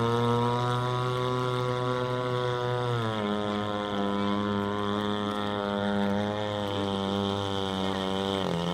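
Radio-controlled scale cruiser yacht's gas-powered engine running steadily as the boat cruises on the water, a continuous drone whose pitch drops slightly about three seconds in and shifts again near the end.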